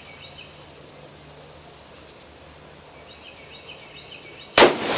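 Birds chirping in the background, then near the end a single rifle shot from a Swiss K31 (7.5 mm), a sharp crack whose report echoes and fades.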